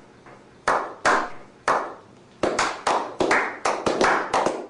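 A series of sharp hand claps, spaced apart at first and then quickening to about three or four a second.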